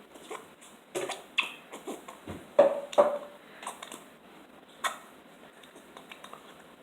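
Handling noise from a small plastic shampoo or conditioner container being worked at to get it open: irregular clicks and knocks, with two louder knocks about two and a half and three seconds in.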